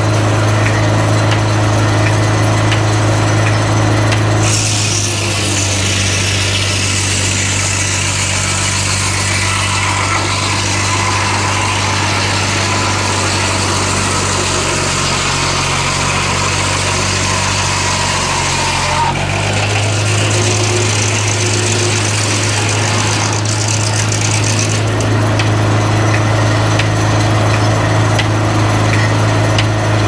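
Old Farquhar belt-driven circular sawmill cutting through a log, over the steady hum of the engine driving it through a long flat belt. The saw's rasp starts about four seconds in and lasts some fifteen seconds. The engine dips slightly under the load near the end of the cut, and a shorter stretch of cutting follows a few seconds later.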